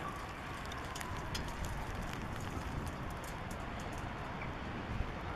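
Steady outdoor rumble and hiss, with a few faint scattered clicks and knocks.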